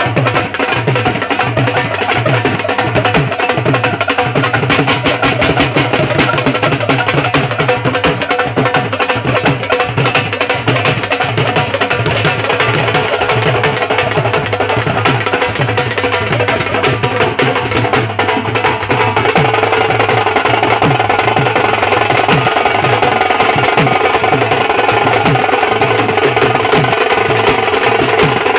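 Live folk drumming: dhols and small hand drums beaten in a fast, driving rhythm with clashing hand cymbals. A folk pipe plays a held melody over the drums, louder from about two-thirds of the way in.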